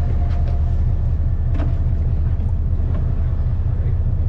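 Fishing boat's engines running with a steady low drone, with a couple of faint knocks on deck.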